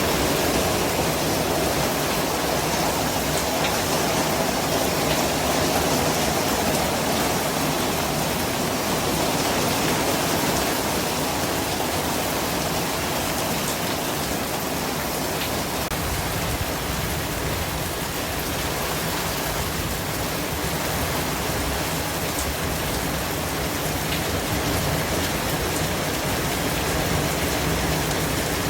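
Steady white noise: an even, unbroken hiss spread across low and high pitches alike, with no change in level.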